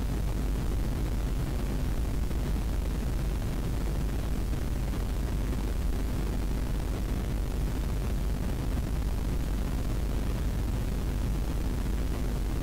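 Steady low rumble of an airliner's jet engines and airflow in flight, heard inside the passenger cabin, even throughout with no change.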